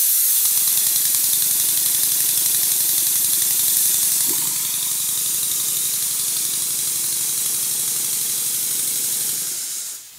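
Stuart Double 10V twin-cylinder vertical model steam engine running with a hiss and a rapid, even exhaust beat, starting after a push on the flywheel because its valve timing is poorly adjusted. The sound fades out near the end.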